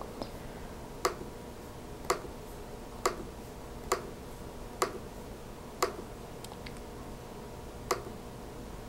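Sharp single clicks of a laptop's pointing device, seven in all at about one a second, as image tiles are selected, over a faint steady hum.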